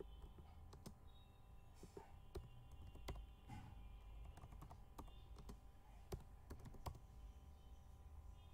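Faint typing on a computer keyboard: irregular key clicks as a short sentence is typed out.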